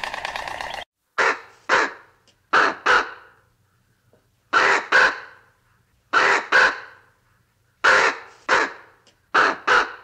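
A crow cawing in pairs, two harsh caws about half a second apart, repeated six times at roughly one-and-a-half-second intervals. Before the first caw, a rapid rattling sound cuts off abruptly under a second in.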